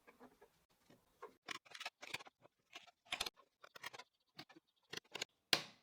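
Faint, irregular light taps and clicks of small pine strips being handled and set in place during assembly.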